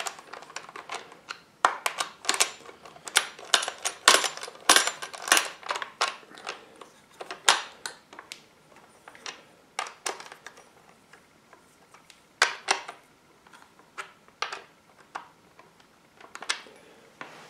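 Irregular metallic clicks and clinks of a small chainsaw's supplied socket wrench fitting onto and turning the bar nuts on the side cover, thick at first and thinning out in the second half.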